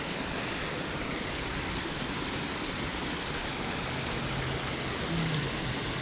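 Steady rushing of flowing creek water, with a faint low hum rising briefly around four to five seconds in.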